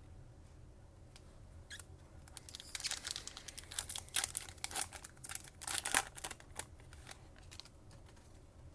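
A foil trading-card pack wrapper being torn open and crinkled, a run of crackling rips and rustles starting about two seconds in and dying away near the end.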